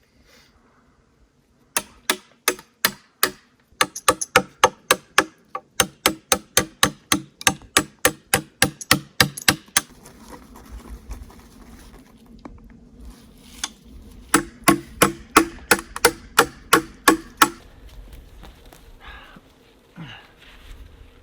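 Rapid hammer blows, about three or four a second, in two runs with a pause of a few seconds between them.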